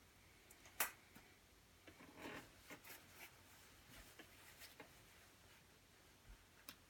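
Faint rustling and scattered small clicks of hands handling the torn nylon shell and down filling of a quilted jacket. A sharp click about a second in is the loudest sound.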